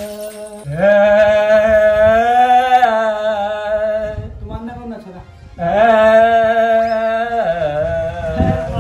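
A man singing loudly, unaccompanied, in long drawn-out notes that waver in pitch. The first note lasts about three seconds. After a short break a second one lasts about two seconds, then the voice drops lower near the end.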